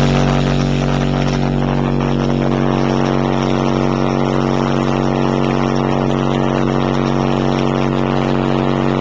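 RE Audio XXX 12-inch subwoofer in a transmission-line enclosure playing a single steady 47 Hz bass tone at very high level. The tone holds constant, with a dense buzz of overtones from the microphone being overdriven.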